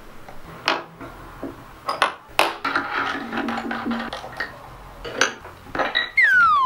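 Scattered metallic clinks and knocks of steel machine tooling being handled: a ring mandrel and collet block set on a wooden bench, then a slitting-saw arbor fitted in a milling machine spindle. Near the end a loud whistle tone falls steeply in pitch.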